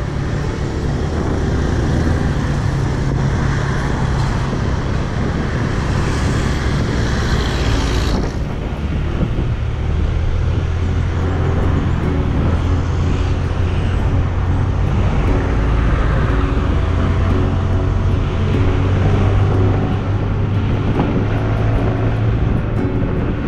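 Motorbike engine running at riding speed, with wind and road noise, its note shifting up and down a few times. A hiss drops away suddenly about eight seconds in.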